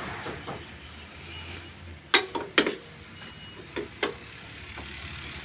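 Sharp metal clanks of a steel rod or tool knocking against the cast-iron parts of an old single-cylinder diesel engine that is not running: a quick group of three about two seconds in, then two lighter knocks near the end.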